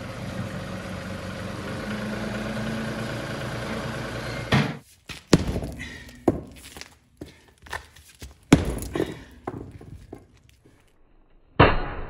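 John Deere 2038R compact tractor's three-cylinder diesel running steadily. Then, from about four and a half seconds in, a string of separate sharp thunks and cracks as concrete is broken up.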